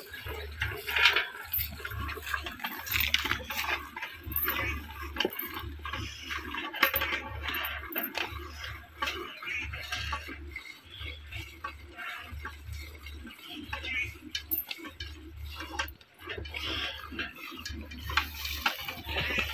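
Jets of milk squirting into a steel pail as a water buffalo is milked by hand, in quick, uneven strokes. A low rumble pulses underneath about once a second.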